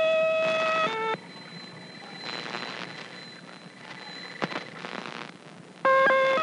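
Shortwave-radio reception of a Cuban station's tone-melody signal: a sustained steady tone that cuts off about a second in, then a gap of radio static with a faint high whistle and a single click, before the tones resume near the end. The narrator takes the tones to be made by a mechanical device, perhaps clockwork-driven.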